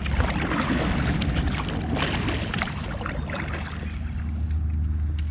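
Water splashing and lapping against a kayak on the move, with small clicks and knocks, easing off about halfway through, over a steady low rumble.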